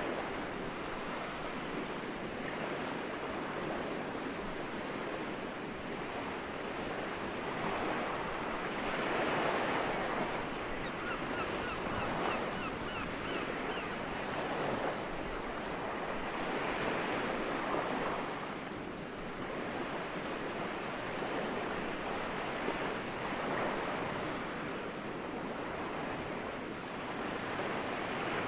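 Soft sea waves washing onto the shore, the surf swelling and ebbing every several seconds.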